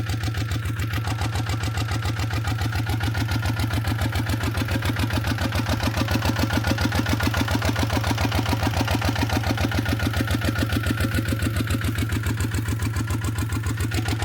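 Single-cylinder diesel engine of an iron buffalo (two-wheel walking tractor) running steadily with an even, rapid chugging beat.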